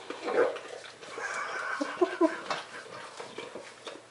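English Bulldog snuffling and breathing noisily at his emptied food bowl, with a few short, pitched whimpers about two seconds in.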